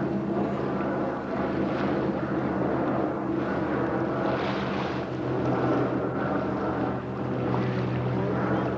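A passenger ferry's engines droning with a steady low hum, under a continuous rush of wind and water.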